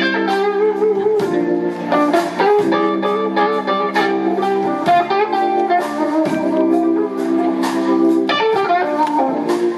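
Live electric blues guitar playing lead lines with bent notes over a band's held backing chords and steady drum beats.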